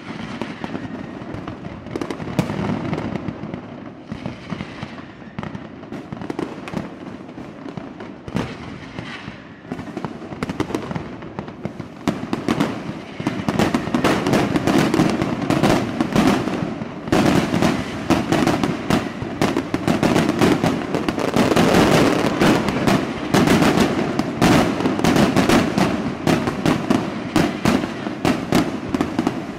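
Fireworks display: aerial shells bursting one after another in quick, crackling reports, growing denser and louder about twelve seconds in.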